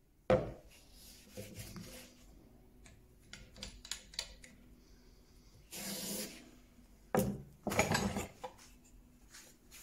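Metal bench plane cutting across the end grain of a small piece of wood: a series of separate short, scraping strokes, the strongest about six and eight seconds in.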